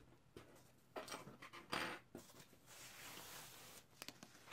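Faint handling noise from a tablet screen assembly being moved by hand on a desk: a few light knocks and clicks, the clearest just under two seconds in, and a soft rustle about three seconds in.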